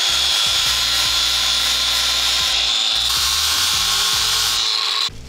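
Power grinder with an abrasive disc grinding steel flat bar: a loud, steady, high-pitched grind that cuts off suddenly near the end. Background music plays under it.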